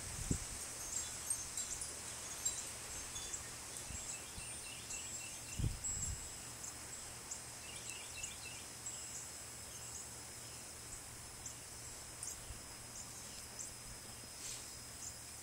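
Steady high-pitched insect chirring, with low wind buffets on the microphone about half a second in and again near six seconds.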